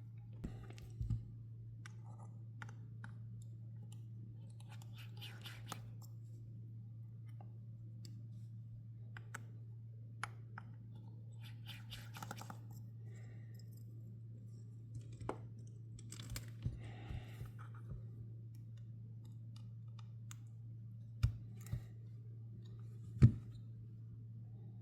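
Small phone-repair hand tools clicking and scraping on the iPhone 13 Pro Max's parts, with a few sharper clicks near the end, over a steady low hum.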